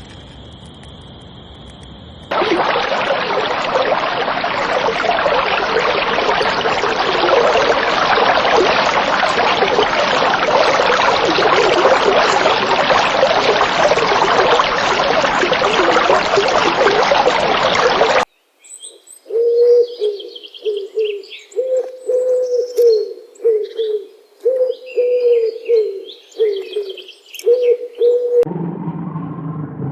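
A steady high whine for about two seconds, then a dense din of many birds chirping at once that cuts off suddenly. After that, pigeons cooing over and over, with a few small birds chirping above them.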